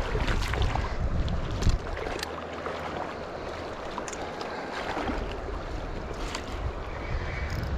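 Rushing river water with wind buffeting the microphone, the rumble strongest in the first couple of seconds and again near the end, with a few sharp knocks or clicks.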